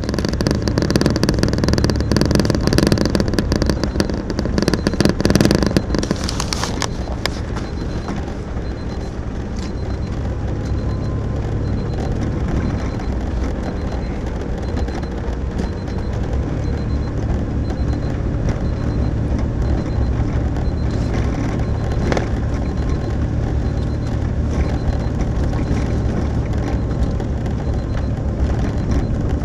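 A vehicle driving, heard from inside: steady engine drone and road noise. The first six or seven seconds are louder and hissier before it settles to an even hum.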